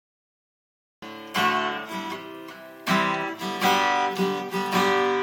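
Acoustic guitar strumming chords, starting about a second in after silence, with the chords ringing on between strokes.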